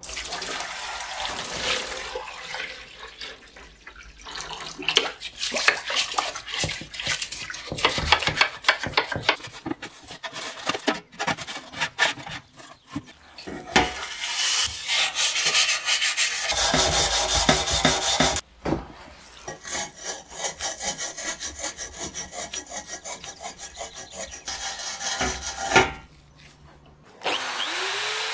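Steel wool scrubbing the brass base of a kerosene stove by hand in rough rubbing strokes, broken by abrupt cuts. It opens with water running into a plastic tub, and near the end an electric drill with a wire-brush bit spins up.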